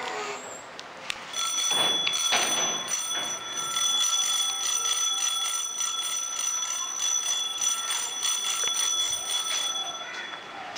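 A bell or alarm ringing continuously at several steady high pitches for about eight seconds, starting about a second in and cutting off near the end.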